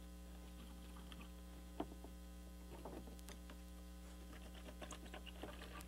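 Steady low electrical hum, with faint intermittent scrapes and clicks of a splining tool pressing spline into a window-screen frame's groove; a sharper click comes a little under two seconds in.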